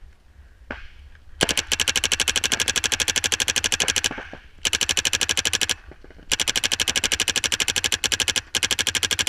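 Paintball marker firing in rapid strings of shots, about ten a second: four long strings with short pauses between them.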